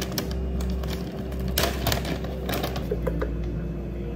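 Plastic bag of frozen blueberries crinkling in irregular crackles as it is tugged open, over a steady low hum.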